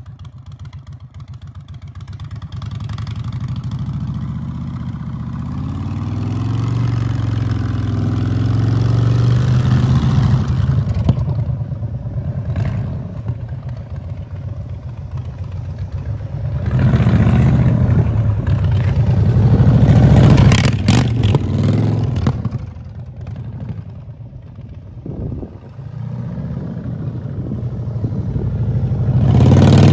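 2021 Indian Chief Dark Horse's Thunderstroke 116 V-twin running through a Freedom Performance Radical Radius exhaust. It idles at first, then is ridden around and past several times, the exhaust note swelling with the throttle and fading between passes. The loudest passes come about a third of the way in, in the middle, and at the end.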